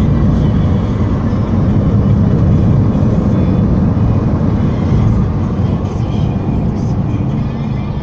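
Car driving along, a steady low rumble of engine and road noise heard from inside the cabin.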